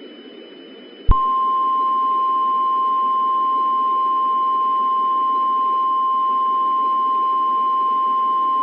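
Weather-radio warning alarm tone, a single steady 1050 Hz tone, that starts with a click about a second in and holds unbroken over a steady hiss of static with a faint high whine. It is the attention signal that comes before a spoken tornado warning.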